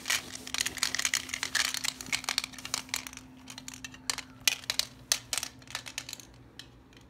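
Small hard gumballs clicking and clattering against each other and the toy gumball machine as they are put in and handled: a dense run of quick clicks for the first few seconds, thinning to scattered single clicks.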